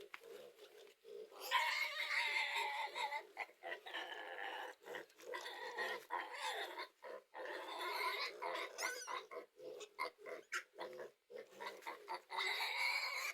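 Pigs squealing in repeated high-pitched cries, loudest about a second and a half in.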